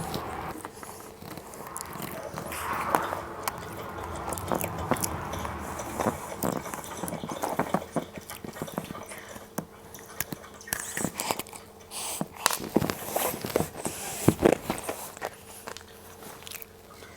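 Close-up crunching and chewing of cookie Pepero, a cookie-coated biscuit stick, with many sharp irregular bites and crunches.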